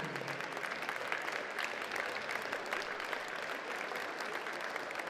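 Audience applauding: many hands clapping at once, holding steady.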